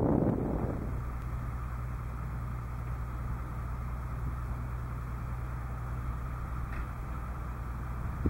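BDZ series 75 narrow-gauge diesel locomotive's engine running with a steady low hum. A loud rushing noise dies away in the first second.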